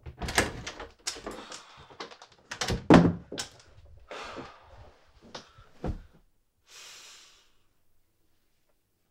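Objects being knocked about and moved in a hurried search through a room: a quick run of knocks, thuds and clicks over the first six seconds, the loudest about three seconds in, then a soft rustle about seven seconds in.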